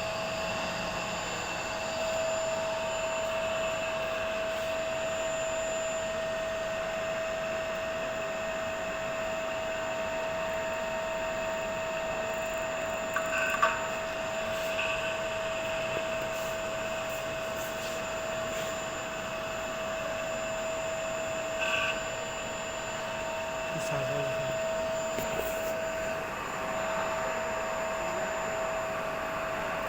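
Three-phase induction motor running: a steady whirr with a constant high whine, the noise that is taken as the motor's sound problem. Two short knocks, about halfway and about two-thirds of the way through.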